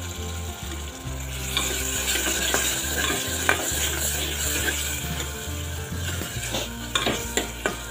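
Chopped tomatoes and spices sizzling in hot oil in a pressure cooker while a metal spoon stirs them, scraping and clicking against the pot, with a burst of scrapes near the end.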